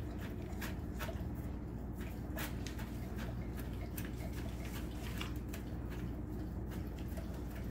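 An Alaskan Malamute eating raw food from a bowl: irregular wet clicks and smacks of tongue and teeth, about two a second.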